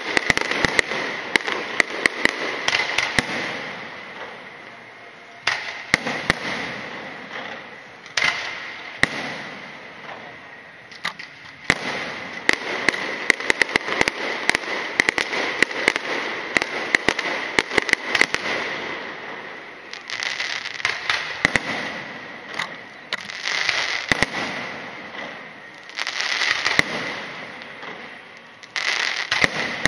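Aerial fireworks bursting overhead in volleys: sharp bangs and dense crackling that ease off for a moment every few seconds before the next salvo.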